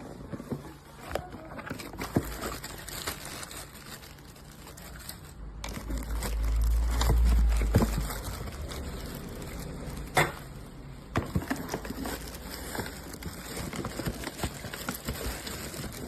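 Irregular clicks, knocks and light rustling as a hair dryer and its plastic diffuser attachment are handled, the sharpest click about ten seconds in. A low rumble swells in the middle. The dryer itself is not running.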